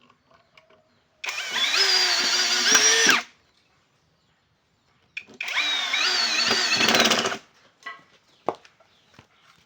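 Small electric power tool working wood in two runs of about two seconds each, its motor whine wavering up and down in pitch as the load changes. Faint small clicks and knocks sound between and after the runs.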